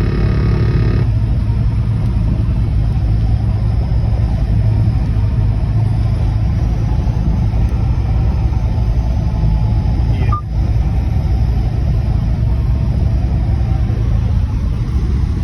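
Steady low rumble of a car driving along a road, engine and tyre noise with no change in pace.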